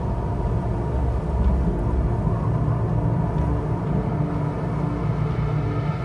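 Low, steady rumble of strong wind ahead of an approaching storm.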